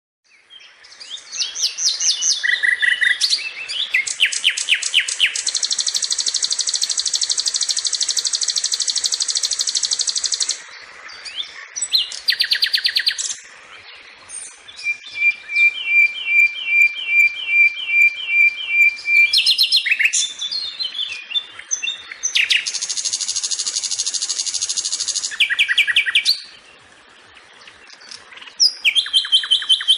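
A sikatan (flycatcher) singing a varied, chattering song: long bursts of very fast high trills, broken by short pauses, and in the middle a run of about a dozen evenly spaced clear notes, roughly three a second.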